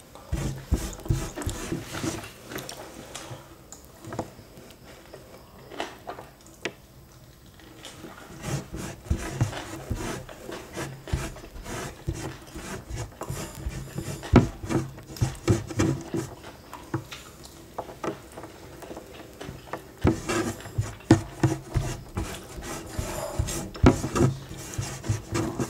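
Fingertips scraping and rubbing across a wooden tray, picking up the last grains of rice, with close-up chewing. The sound comes as many short, irregular scrapes and clicks.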